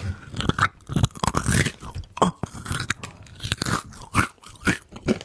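Close-miked chewing of a plain deep-fried chestnut snack: a run of irregular crunches, some louder than others.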